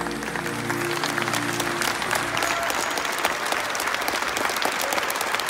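Concert audience applauding, a dense steady clapping, while the band's last held chord dies away in the first two seconds.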